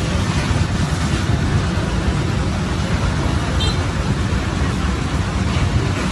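Steady street traffic noise, an even rumble of passing vehicles, with a brief high chirp about three and a half seconds in.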